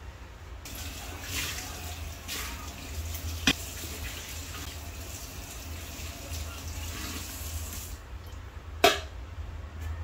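Kitchen tap running into a stainless steel sink as dishes are rinsed. The water stops about eight seconds in. There is a click of dishware about three and a half seconds in and a louder clack near the end.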